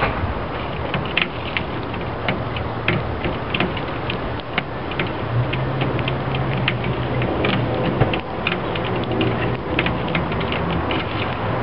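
Many sparrows pecking seed off a glass table top: rapid, irregular taps of beaks on glass that sound like Morse code.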